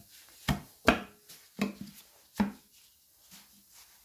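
Four sharp knocks on a Gardner 6LXB diesel's metal rocker cover as it is worked loose from the cylinder head. They come in the first two and a half seconds, some with a short ring, and then it goes quiet.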